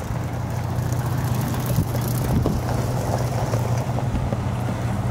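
Pickup truck engine running at low speed, a steady low hum, as the truck creeps past.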